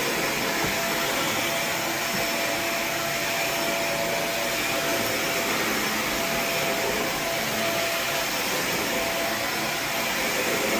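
Steady suction rush of a four-jet lightweight titanium carpet steam-cleaning wand under vacuum, with a faint steady whistle running through it.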